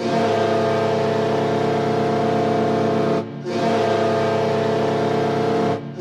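Custom hockey goal horn blowing: a loud sustained chord that sounds in two long blasts. There is a short break about three seconds in, and the second blast cuts off briefly just before the end as the next begins.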